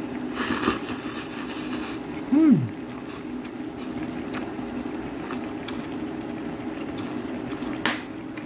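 A person slurping ramen noodles, a noisy slurp lasting about a second and a half, followed by a short falling hum of the voice and a sharp click near the end, over the steady sound of the ramen pot boiling on the burner.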